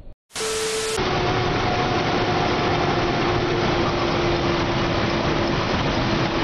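Steady engine and road noise heard from inside a moving vehicle at highway speed, with a whine that slowly drops in pitch. It starts after a brief gap near the start.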